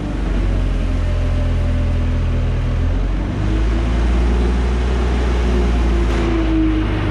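Nissan forklift's propane-fuelled engine running steadily while the operator works the mast.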